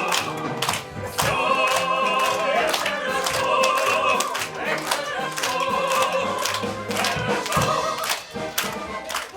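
A choir singing a song with instrumental accompaniment and a steady beat.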